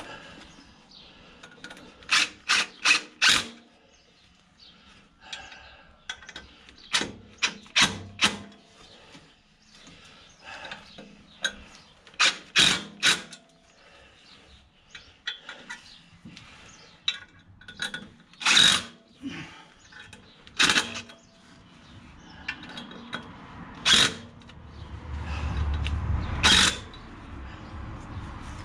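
Cordless impact tool tightening a clutch pressure plate's bolts onto the flywheel a bit at a time: short runs of sharp clicks in small groups, with the tool's motor running longer for a couple of seconds near the end.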